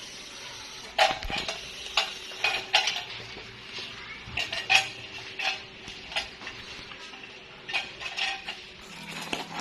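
Irregular clicks, clinks and knocks of unboxed light fixtures and their packaging being handled, about a dozen sharp strikes spread unevenly over the few seconds.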